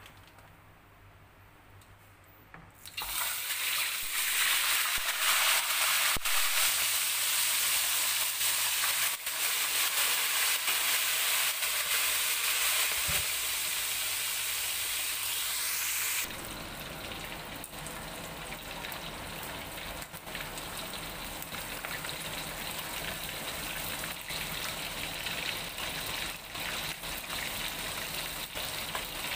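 Two whole carp deep-frying in hot oil in a stainless steel wok. A loud hissing sizzle starts suddenly about three seconds in as the fish go into the oil, then steps down to a quieter steady sizzle about halfway through.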